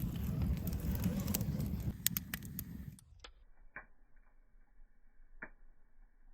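Wood campfire crackling, with a few sharp pops in the second half. About three seconds in it cuts off suddenly to a faint low hiss with a few soft, scattered ticks.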